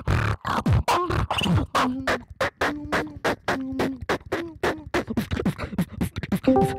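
Solo vocal beatboxing: a fast run of sharp mouth-made percussive sounds, several a second, with short hummed bass tones in between.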